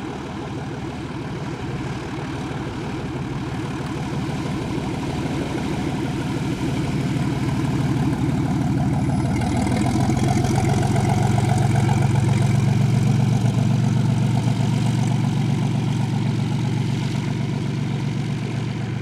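Cessna T206H Turbo Stationair's turbocharged six-cylinder piston engine and propeller running at low taxi power, a steady low drone. It grows louder as the plane taxis past, is loudest about two-thirds of the way through, then fades a little.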